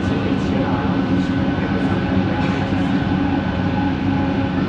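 Kelana Jaya Line Bombardier ART train running, heard from inside the carriage: a steady rumble with the linear induction motor's hum and a thin whine.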